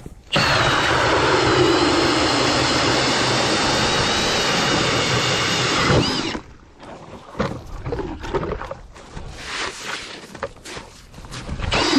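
Cordless hammer drill spinning an ice auger runs loudly for about six seconds, its pitch falling as it works, then cuts off suddenly. Irregular knocks and clatter follow.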